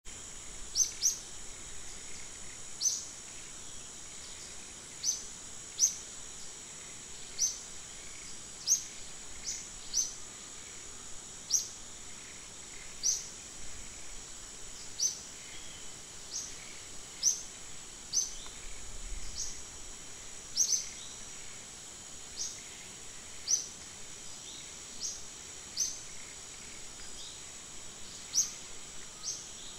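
Forest ambience: a steady high-pitched insect drone, over which a bird repeats a short upward-sweeping chirp about once a second.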